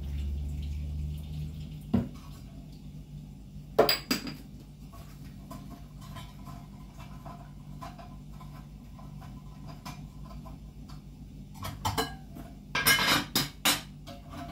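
Dishes and cutlery being handled: a knock about two seconds in, a sharp clatter about four seconds in, and a quick run of clinks near the end, over a steady low hum.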